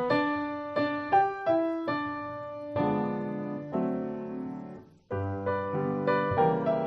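Solo piano music: a steady run of struck notes that dies away about five seconds in, then a new phrase begins.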